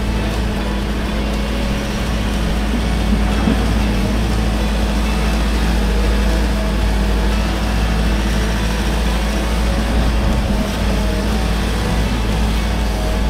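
Case 145 excavator's diesel engine and hydraulics running steadily under working load, heard from inside the operator's cab: a constant low rumble with a faint whine on top.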